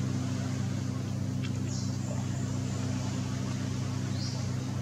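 Longtail boat engine running at a steady pitch, a low droning hum that holds without change.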